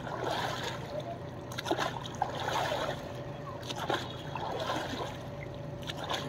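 River water splashing and sloshing in uneven bursts as people bathe at the water's edge.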